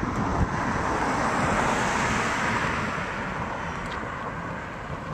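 A car driving past on the road, its tyre and engine noise swelling over the first couple of seconds and then fading away, with wind buffeting the microphone.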